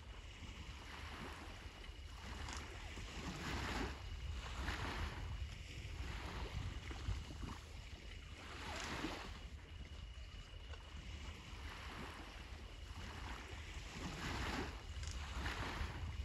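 Sea waves washing onto the shore, swelling and falling away every few seconds, over a steady low rumble of wind on the microphone.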